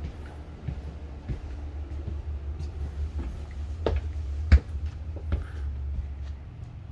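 Footsteps and a few knocks from a camera being carried through the trailer, over a steady low rumble. The loudest knock comes about four and a half seconds in.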